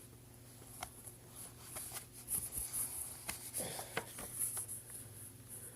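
Scattered light clicks and taps of small plastic Snap Circuits parts being handled and sorted, over a steady faint electrical hum and hiss.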